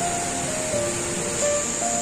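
Background music: a slow melody of long held notes over a steady high-pitched drone.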